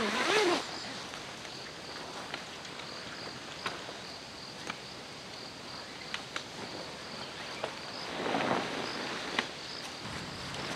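Insects chirping outdoors in a steady high pulse, about two chirps a second, with a few small clicks and a brief rustle of movement near the end.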